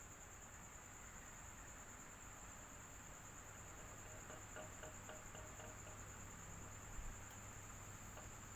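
Electric fan running steadily: a faint, even whoosh with a constant high, thin whine over it. A few faint ticks sound about halfway through, and a soft knock comes near the end.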